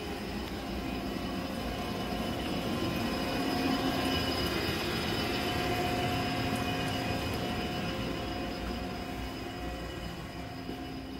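Steady machinery noise: a continuous rushing hum with a few steady tones over it, swelling to its loudest around the middle and easing off toward the end.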